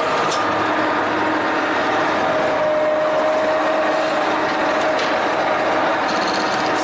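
Metalworking machine running steadily: a continuous motor whine over a dense mechanical noise.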